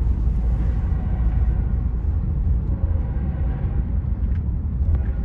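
Steady low vehicle rumble heard from inside a car.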